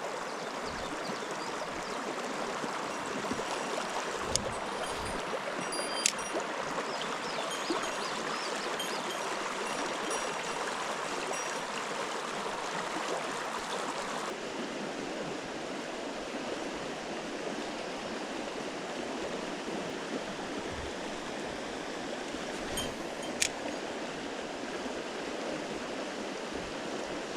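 Mountain stream water rushing steadily over rocks, with a few sharp clicks standing out above it.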